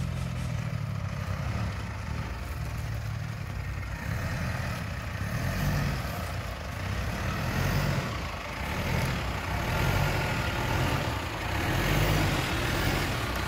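SUV engine running at low revs on an off-road obstacle, its load swelling and easing several times, with a rougher, brighter noise joining about four seconds in.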